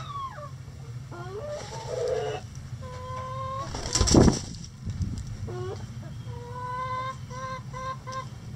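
Bantam chickens calling: a rising call about a second in, a held note about three seconds in, and a run of short repeated notes near the end, over a steady low hum. A brief loud noise about four seconds in is the loudest sound.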